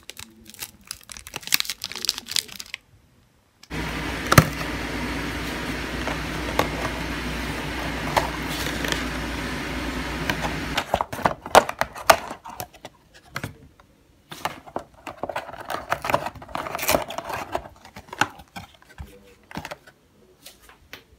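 Paper wrappers and cardboard food boxes being handled: irregular crinkling, tapping and rustling clicks. A steady hum and hiss runs under it from about four seconds in until about eleven seconds.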